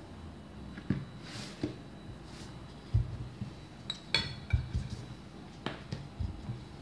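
Wooden rolling pin knocking and thudding on a table while puff pastry dough is rolled out: scattered soft thumps with a few light clicks, the loudest a few seconds in.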